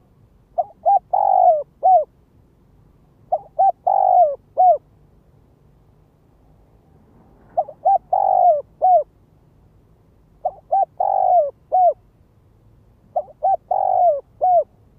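Spotted dove cooing: five repeated phrases a few seconds apart. Each phrase is two quick short notes, a longer falling coo and a final short note.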